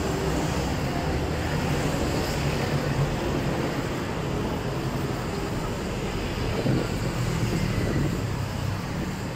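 Steady city street traffic: vehicle engines running with a low hum, and tyre noise.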